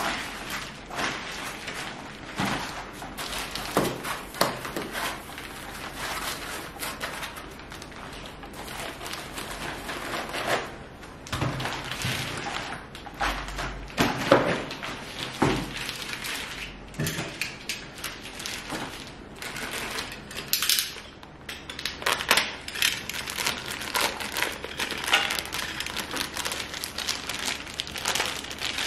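Unpacking a projector screen kit: plastic wrapping crinkling and rustling, and the wrapped frame rails and cardboard box knocking and clattering in irregular bumps.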